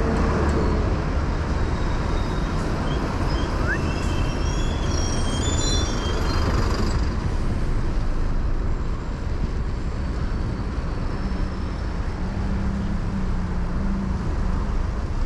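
Busy city road traffic: vehicle and bus engines over a steady low rumble, with a few short high-pitched squeaks in the middle seconds and an engine hum rising out of the traffic near the end.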